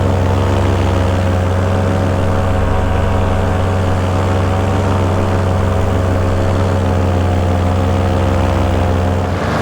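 Vittorazi Moster 185 single-cylinder two-stroke paramotor engine and propeller running steadily in flight, an even drone with no change in pitch.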